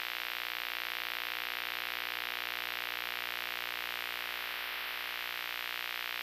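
Steady electronic hiss layered with a held, unchanging chord of many steady synthesizer tones: an outro drone.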